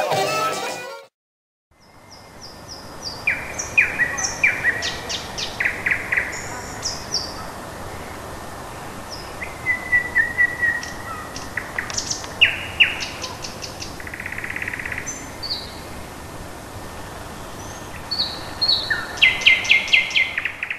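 Party music cuts off about a second in; after a brief silence, birdsong fades in: several small birds chirping and trilling in short repeated phrases over a steady outdoor hiss.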